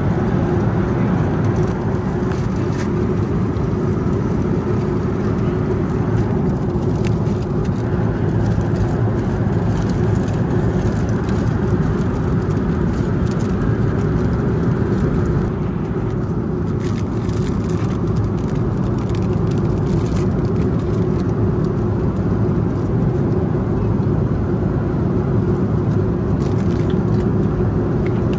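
Steady cabin noise of a Boeing 737-900 airliner in cruise: a constant low drone of engines and rushing air, with a few faint clicks of the meal tray and wrappings being handled.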